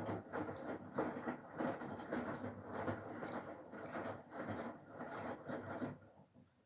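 Whirlpool FSCR90425 front-loading washing machine turning its drum in the rinse cycle, an uneven churning noise that stops about six seconds in.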